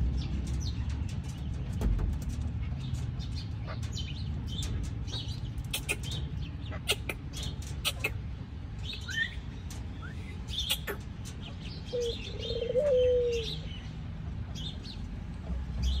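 Caged chukar partridges calling: scattered short high chirps and clicks, with one low warbling call lasting about a second and a half near three-quarters of the way through.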